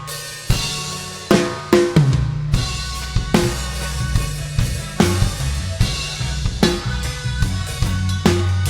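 Live reggae band playing an instrumental passage: a drum kit with bass drum, snare and rimshot hits over a steady low bass line.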